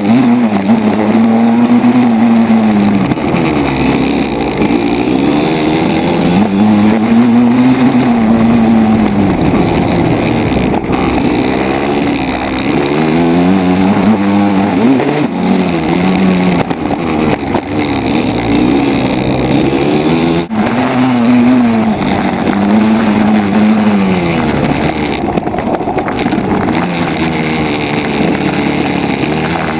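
Dirt bike engine heard from on board, its revs rising and falling again and again as the rider accelerates and backs off. There is one sharp knock about two-thirds of the way through.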